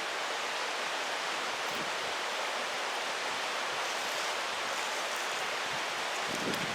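Mountain stream water rushing over rocks in a steady, unbroken flow, with a few faint knocks near the end.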